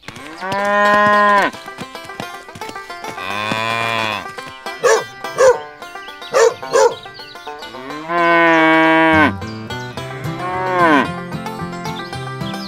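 Cattle mooing: four long, drawn-out moos, with two pairs of short calls in between, over quiet background music.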